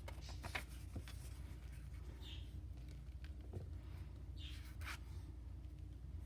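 Faint rustling, rubbing and light clicks of paper cards being handled and pressed on a tabletop, with a few short squeaks, over a steady low hum.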